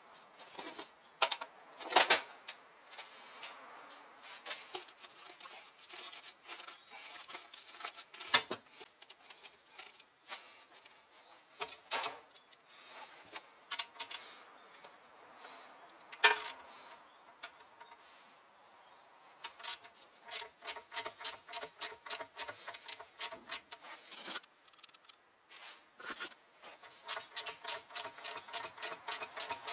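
Inside a Toyota Esquire: scattered sharp knocks and rattles, the abnormal noise that the uploader links to the shock absorbers. In the second half there are runs of steady regular ticking, about three a second.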